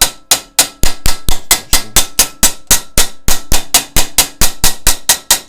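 Hammer striking a thin stainless-steel sheet part in a fast, even run of about five blows a second, with a faint metallic ring under the blows. This is the freshly cut piece being hammered flat and straight. The blows stop shortly before the end.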